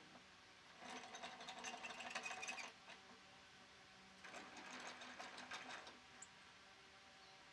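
Pipe clamps being tightened by turning their screw handles: two bursts of fast clicking, each about two seconds long, starting about a second in and again after four seconds.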